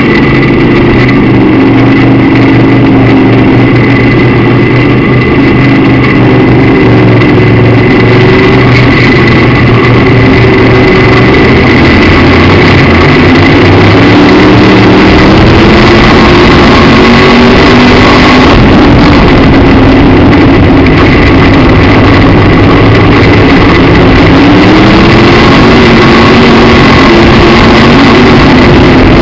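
Midwest Modified dirt-track race car's V8 engine heard very loud from inside the car under racing. Its pitch rises and falls every few seconds as the throttle comes on and off through the turns.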